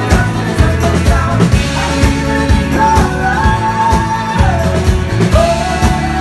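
A live folk-rock band playing: a voice singing a held melody over acoustic guitar, banjo, electric bass and a steady beat of about two strikes a second.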